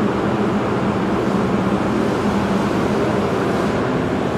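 Paint booth ventilation running: a steady rush of air with a low hum.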